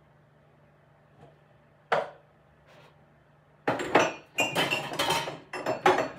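Cups and dishes clattering in a kitchen cupboard as they are moved around by hand: one sharp knock about two seconds in, then a quick run of clinks and clanks, some ringing, from about four seconds on.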